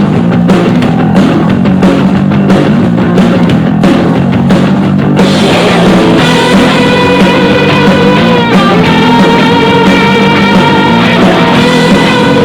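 Rock music played through an Xdobo Nirvana 50W portable Bluetooth speaker, with a strong bass line and a steady drum beat. About five seconds in, the treble opens up and long held lead notes come in over the beat.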